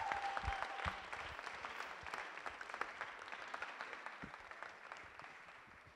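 Audience applauding, with a held high tone over the first second; the clapping gradually dies away.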